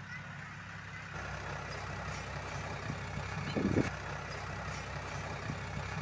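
A steady low engine hum that gets a little louder about a second in, with one short low thump near the middle.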